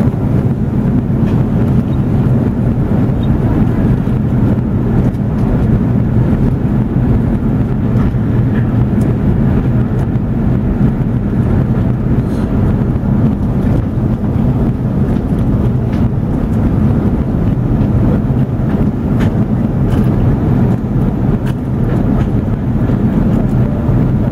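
Steady low rumble of a jet airliner's cabin in flight: engine and airflow noise, even and unchanging throughout.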